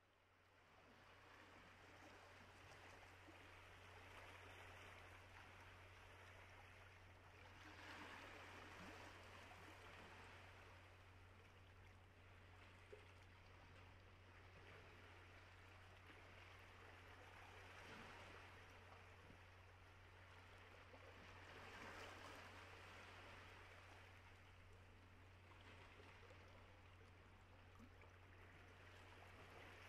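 Near silence: a faint, steady rushing hiss that swells gently a few times, over a low steady hum.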